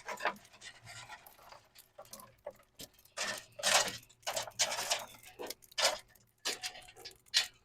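Lumps of lit natural lump charcoal being pushed and spread around the firebox of a charcoal grill, clinking and scraping in irregular bursts, several of them louder in the middle and near the end.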